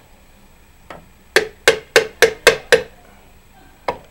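Hammer tapping a chisel against a TP38 turbocharger's housing: a quick run of about seven sharp metal strikes around the middle and one more near the end, knocking loose a housing that is stuck because it is gunked up.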